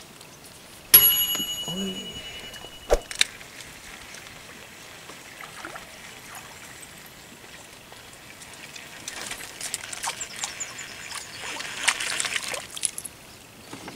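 Water trickling and splashing around a small boat. About a second in there is a sharp sound with a high ringing tone that lasts about two seconds, and a run of small ticks and crackles comes near the end.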